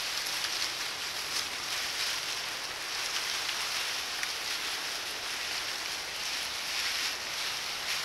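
Dry leaf litter rustling and crackling under hogs rooting and walking through it, with irregular faint crunches over a steady hiss.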